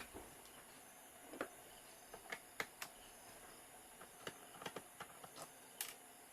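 Faint, irregular small clicks and taps, about a dozen over several seconds, from tools and plastic parts being handled as a laptop is taken apart.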